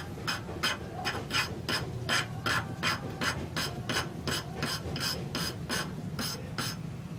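Regular mechanical clicking, about three clicks a second, that stops shortly before the end, over a steady low hum.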